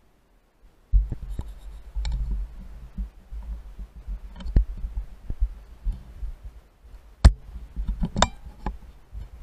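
Handling noise picked up by a rifle-mounted night-vision scope's microphone: low bumps and thumps with scattered sharp clicks, starting about a second in, the sharpest click about seven seconds in.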